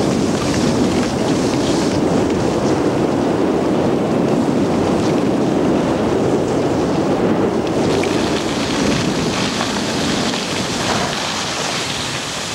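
Wind buffeting the camcorder's microphone: a steady, loud rushing noise that eases a little in the last few seconds.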